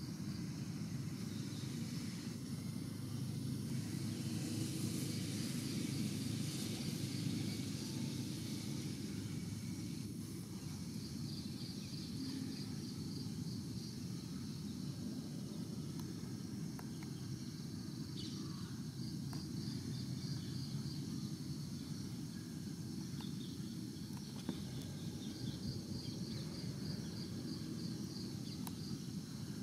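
Outdoor ambience: a steady low rumble, with an insect chirping in short, rapid trains of high pulses that come back every few seconds.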